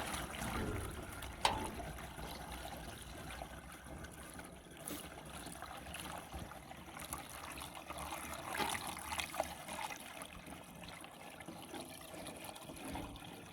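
Water running and trickling steadily, with a sharp knock about a second and a half in and a few lighter clicks.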